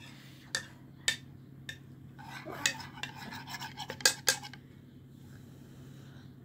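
Metal spoons clinking and scraping against ceramic plates while eating, a few sharp clinks spread out, the loudest about four seconds in.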